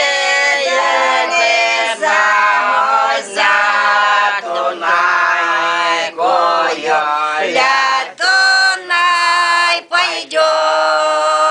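Siberian Old Believer women singing a folk song unaccompanied, several voices together in close harmony, each line sung in long drawn-out notes with short breaks for breath. Near the end they settle on one long held chord.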